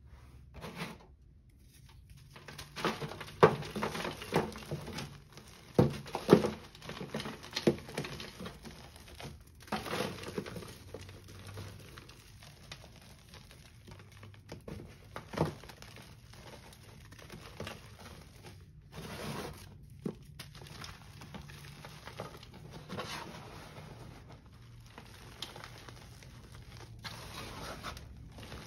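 Hands crushing moulded gym chalk pieces. Crisp crunches and snaps come thickest and loudest a few seconds in, then give way to softer crumbling and rubbing of loose chalk powder, with an occasional sharper crunch.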